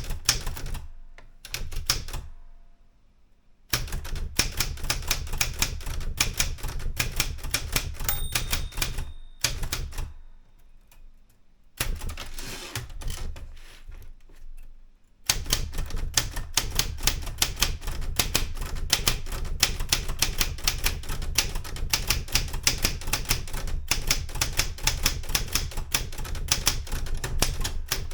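Erika 105 manual typewriter being typed on: quick runs of keystrokes clacking, each key striking the platen, broken by a few short pauses, one soon after the start and a longer, quieter stretch around the middle.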